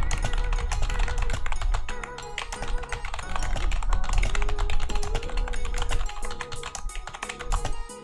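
Rapid typing on a Gaming Freak SHK87 membrane gaming keyboard: a fast, irregular run of key taps, heard over background music with a strong bass beat.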